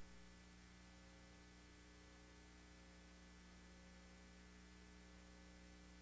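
Near silence: a faint steady mains hum with light hiss on a blank stretch of old videotape, after a brief click at the very start.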